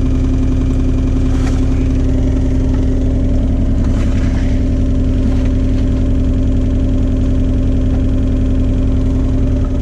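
John Deere 35G mini excavator's diesel engine running steadily, with a few faint clicks over it.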